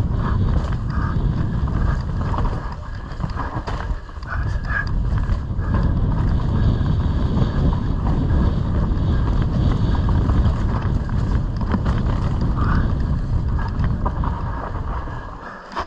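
Mountain bike descending a dirt forest trail, heard on an action camera: a steady rush of wind on the microphone over the rumble of knobby tyres on dirt, with frequent short rattles and knocks from the bike as it rides over roots and bumps. The noise fades near the end as the bike slows.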